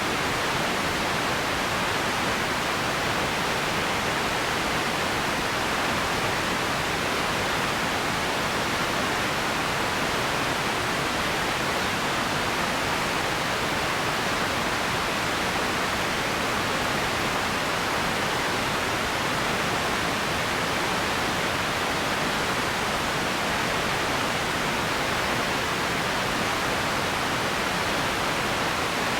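Steady, even hiss of empty ambience noise, unchanging throughout, with most of its weight in the middle register and no distinct events.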